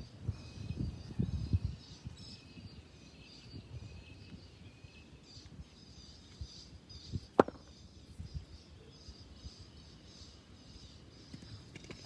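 Quiet outdoor cricket-net ambience with faint bird chirps and a few low thuds near the start, a single sharp knock about midway, and a loud, sharp crack of a cricket bat striking the ball at the very end.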